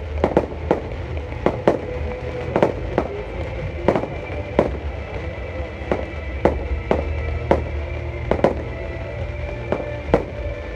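Fireworks display: a steady run of sharp bangs from bursting firework effects, about two to three a second and unevenly spaced, over a continuous low rumble.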